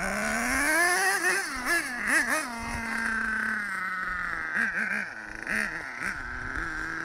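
Small nitro engine of a radio-controlled monster truck revving. The pitch climbs over the first second, blips up and down a few times around two seconds in, holds steady, drops, then gives a few more quick blips about five seconds in.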